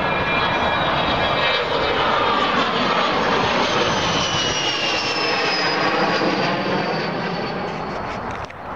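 Jet aircraft passing overhead: a loud, steady rush of engine noise with a high whine that slowly falls in pitch as it goes by. The sound drops away sharply for a moment near the end.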